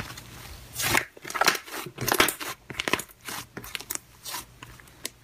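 Slime being squeezed and pressed by hand, giving irregular sticky crackles and clicks.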